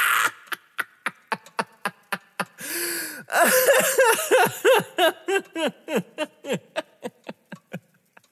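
A man laughing: short chuckles at first, then a long, loud peal of laughter from about three seconds in that gradually tapers off.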